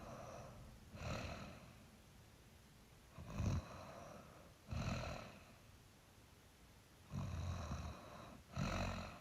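A person snoring in sleep: five rasping snores, each under a second, mostly coming in pairs with quiet breathing between.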